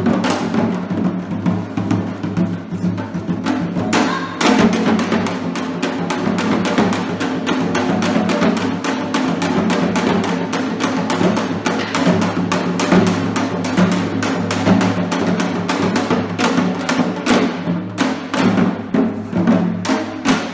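Korean traditional music with dense, steady drum strokes running throughout.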